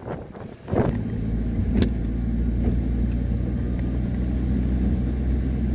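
Car engine starting about a second in, then idling steadily.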